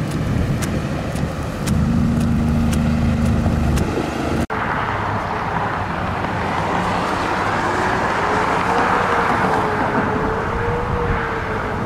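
Road and engine noise inside a moving car's cabin, with a regular ticking about twice a second in the first part. After an abrupt cut, steady driving noise continues.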